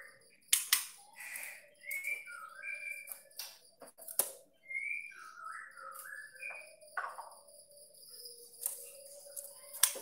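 Young white-rumped shama giving short whistled chirps that slide up and down, in two runs of several notes, mixed with a few sharp knocks and clicks as it hops about the wooden cage.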